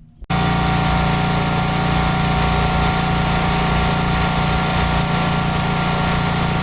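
Engine of a small Barreto track-driven stump grinder running steadily at a constant speed. It cuts in suddenly just after the start.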